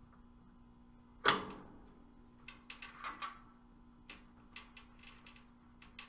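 Metal clicks and clinks from a valve core removal tool on an air-conditioner service valve as it is turned to screw the Schrader valve core back in: one loud clank about a second in, then a run of light ticks.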